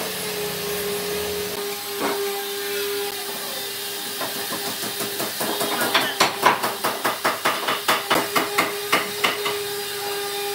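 A hammer striking wood in a quick run of blows, about four or five a second, starting about halfway through and stopping near the end, over a steady hum.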